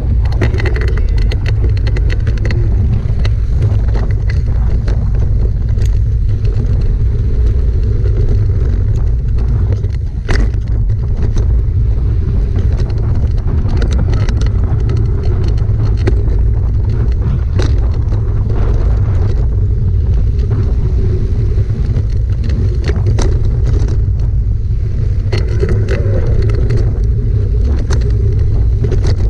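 Mountain bike riding fast down a dry dirt trail: wind buffeting the camera's microphone over the sound of tyres on dirt, with frequent clicks and rattles from the bike over rough ground.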